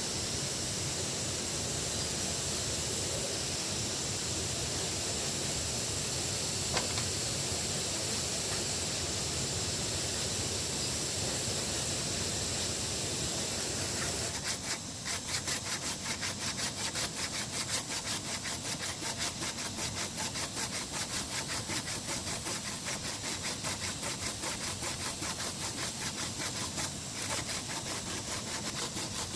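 A steady hiss of outdoor background noise, then from about halfway a hand saw cutting with quick, even back-and-forth strokes.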